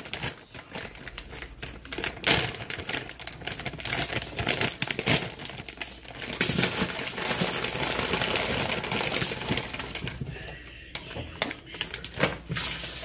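Frozen hush puppies being poured from a plastic bag onto a cookie sheet: rapid clicking and rattling of the hard pieces on the pan, heaviest about halfway through, with some bag crinkling.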